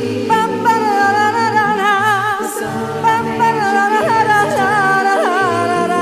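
A cappella women's vocal ensemble singing in harmony: held notes with wavering vibrato over a low sung part that steps between a few pitches.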